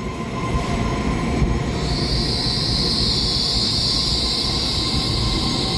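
Taiwan Railway EMU3000 electric multiple unit running along the platform at close range, a steady low rumble of the cars going by. About two seconds in, a steady high-pitched squeal joins and holds.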